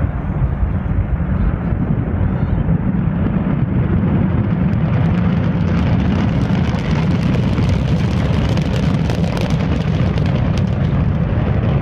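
Antares rocket's two AJ26 first-stage engines at launch: a loud, steady, deep rumble with crackling, growing fuller from about four seconds in.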